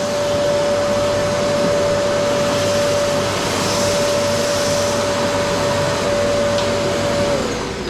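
An electric power tool's motor running steadily with a loud rushing noise and a constant high whine, then switched off and winding down near the end.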